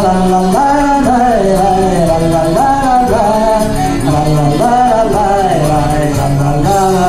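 Russian folk-style pop song over PA speakers: a backing track with jingling tambourine under a bending melody line, with a man singing live to it.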